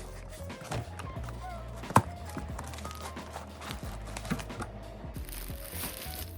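Background music with a light melody over a steady bass, with scattered soft handling clicks and one sharp tap about two seconds in.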